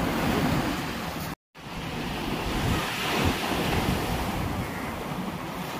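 Wind buffeting the microphone over rushing water, steady apart from a momentary cut to silence about a second and a half in.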